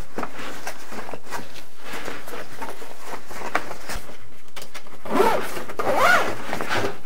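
Zipper being drawn along the fabric cover of a soft 3D printer enclosure, a rasping run of small ticks with the cloth rustling.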